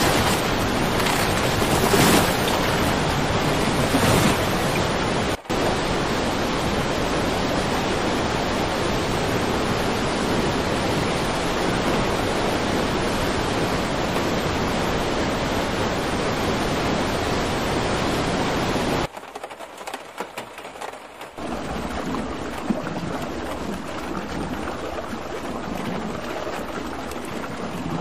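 Fast brown floodwater rushing past in a torrent, a loud steady wash of churning water. It breaks off briefly about five seconds in and drops much quieter for a couple of seconds about two-thirds through before the rushing starts again.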